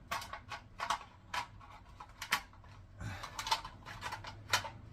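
Irregular light clicks and knocks of plastic toilet flush mechanism parts being handled and tipped to empty out water.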